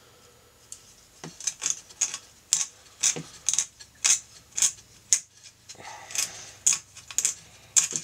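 X-Acto knife blade scraping and shaving the fibreglass circuit board to widen its mounting holes, in short, sharp strokes about two a second.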